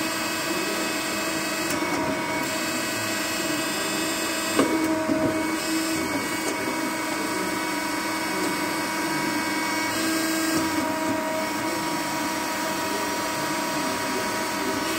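FORTE SBA 241 twin-pillar horizontal bandsaw running, a steady mechanical whine made of several steady tones, with a single sharp click about four and a half seconds in.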